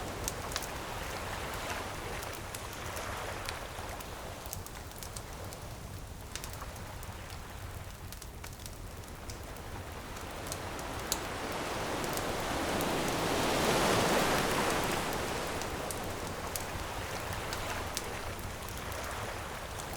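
Ocean waves washing onto a beach, a slow swell of surf rising to its loudest a little past the middle and then easing off, with a wood bonfire crackling and popping in sharp clicks throughout.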